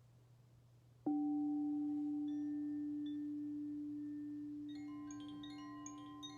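A singing bowl struck once about a second in, ringing with a long, slowly fading tone. Near the end, wind chimes join it with a run of light, high tinkling notes.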